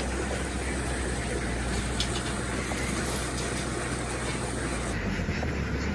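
An engine running steadily with a low hum under a broad wash of noise; the sound shifts abruptly near the end.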